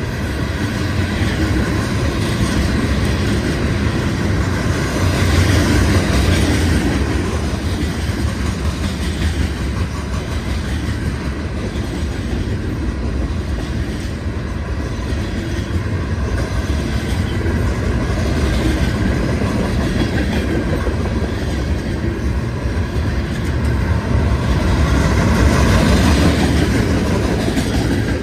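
Union Pacific mixed freight train cars rolling past, wheels clattering over the rail joints, getting louder about six seconds in and again near the end.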